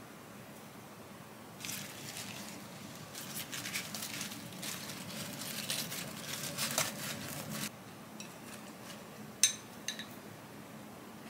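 Kitchen handling sounds: several seconds of dense rustling and light clinking, then two sharp clicks near the end, the first the loudest.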